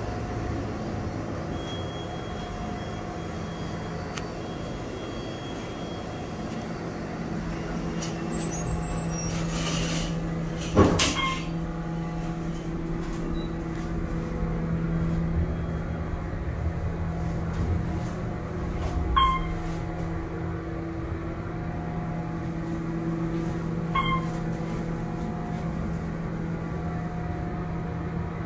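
OTIS Series 1 hydraulic elevator running: a few clicks and a sharp thump about eleven seconds in as the car moves off, then the steady hum of the hydraulic power unit. An electronic chime rings twice in the second half.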